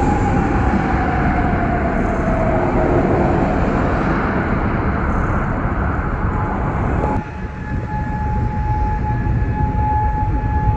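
Civil defence air-raid siren sounding one steady tone. Over the first seven seconds a loud rushing noise lies over it and stops suddenly, and a second tone slides down in pitch in the first few seconds.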